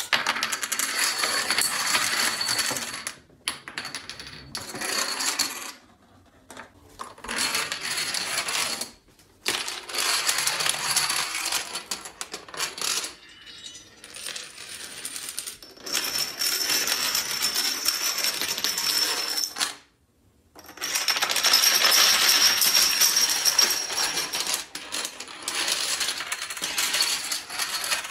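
A long chain of dominoes toppling, a fast run of light clattering clicks in stretches of a few seconds, with short lulls between them and a brief near-silent gap about twenty seconds in.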